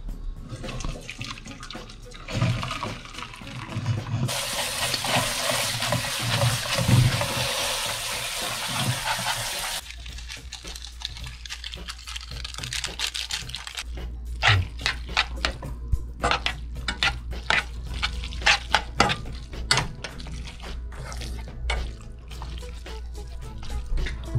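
Water from a pan of boiled instant noodles being poured off into a stainless steel sink, a steady rush of water for about six seconds that starts and stops abruptly. Later comes a run of sharp clicks and taps of utensils against the pan as the noodles are seasoned and mixed.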